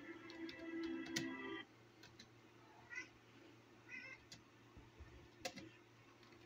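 Sustained music that stops about a second and a half in, then two short high animal cries about a second apart, with a few sharp clicks.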